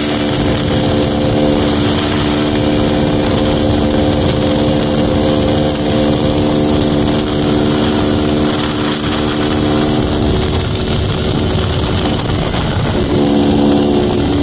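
Honda Pop 110i's small single-cylinder four-stroke engine running while the bike is ridden, with wind rushing over the microphone. The engine note holds steady, fades back about nine seconds in, and comes back stronger near the end.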